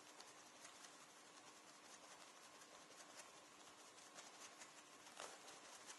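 Near silence: faint, irregular soft taps of water-based leather colourant being dabbed onto a leather jacket sleeve, over a faint steady hum.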